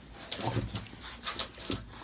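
A French bulldog snuffling and breathing at play with a Sphynx kitten, mixed with short, irregular rustles and soft taps from their scuffling.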